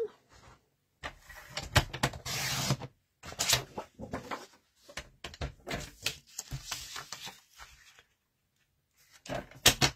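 Paper being handled and cut on a sliding-blade paper trimmer: a run of light clicks and paper rustles, with one smooth swish of the blade along its track cutting through the patterned paper a little over two seconds in.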